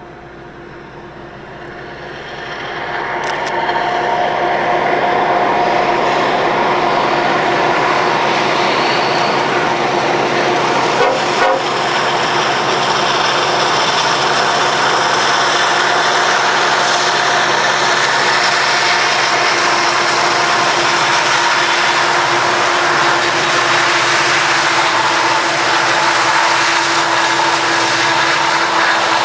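Train with diesel locomotives coming up and running past close by: a steady, loud engine drone over dense rumbling noise that builds over the first few seconds, then holds.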